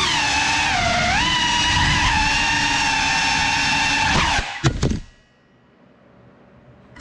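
Small FPV quadcopter's motors and propellers whining, the pitch dipping and rising as it manoeuvres. About four and a half seconds in come a few sharp knocks as the drone hits the floor, and the motors stop, leaving only a faint hiss.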